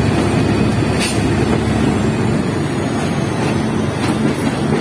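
EMD GT-series diesel locomotive running steadily just ahead, a low engine drone, with two light clicks of wheels over the track.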